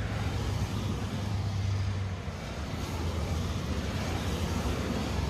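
Steady wind noise on the microphone: a low rumble under a constant hiss.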